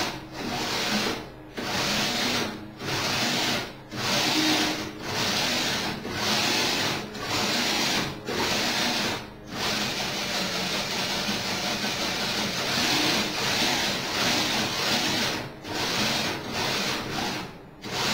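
Electric winch motors of a kite-control robot running in runs of about a second with short breaks between them, then without a break for several seconds in the middle, then in shorter runs again near the end.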